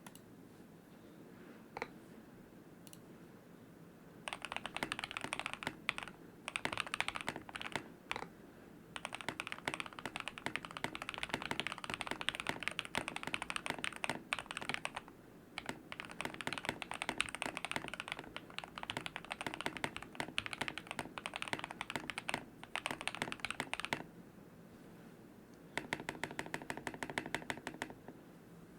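Custom-built 75% mechanical keyboard with lubed Akko Rose Red linear switches, foam-dampened case and lubed stabilizers, being typed on in quick runs of keystrokes with short pauses between them. Near the end the strokes come faster and very evenly spaced.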